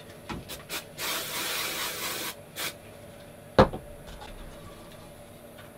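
Aerosol super-glue activator sprayed in a few short hisses and one longer hiss of about a second, then a single sharp knock as a wooden piece is set down onto the glued board.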